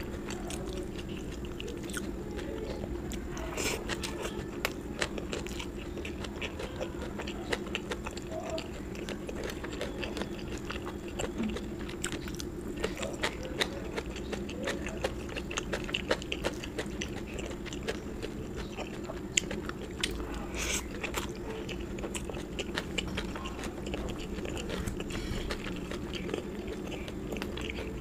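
Close-miked chewing and biting of food, with many small sharp mouth clicks scattered irregularly throughout.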